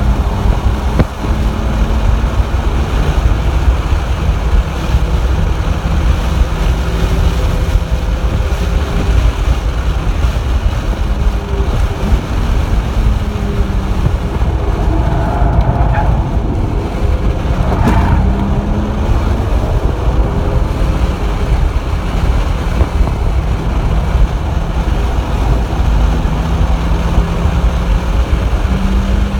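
Nissan 350Z's VQ35HR V6 engine driven hard on track, heard from inside the cabin over loud wind and road noise; the engine note rises and falls repeatedly. Two brief sharp sounds stand out roughly two-thirds of the way through.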